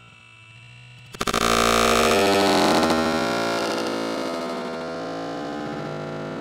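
A sutali bomb (jute-twine-wrapped firecracker) blast heard slowed down with the slow-motion picture: a long, distorted, rumbling boom that sets in suddenly about a second in and slowly fades.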